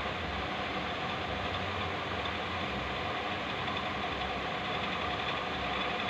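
A steady machine hum, unchanging throughout, with faint steady tones over a hiss.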